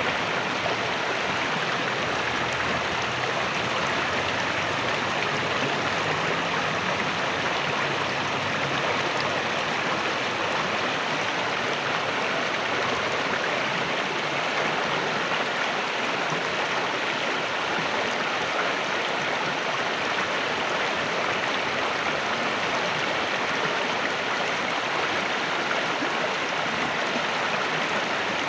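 River water rushing and splashing over a small waterfall, a steady even noise with no breaks.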